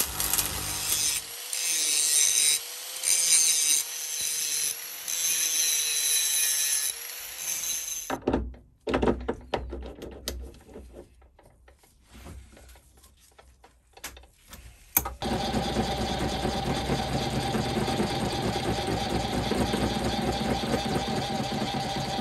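Stick-welding arc crackling in several short runs over the steel block. Then come a few scattered clicks and knocks of handling. About two-thirds through, a sharp click starts the mini metal lathe, which runs steadily with a constant motor whine as the chuck spins.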